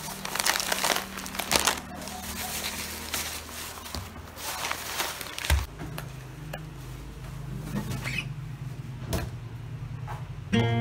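Plastic carrier bag and bread bag rustling and crinkling as a loaf of sliced bread is handled, with a few light clicks. After a cut, a low steady hum with a few light knocks of things set down on a table. Acoustic guitar music starts just before the end.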